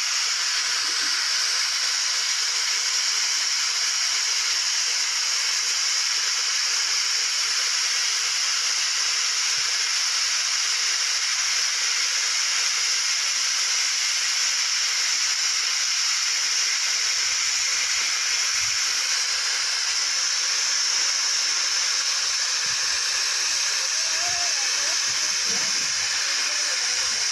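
Gas cutting torch running with a steady, even hiss.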